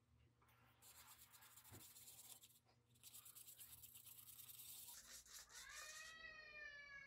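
Faint scraping of a wooden stir stick against the inside of a paper cup as paint is mixed. Near the end comes a thin squeak that rises in pitch and then holds.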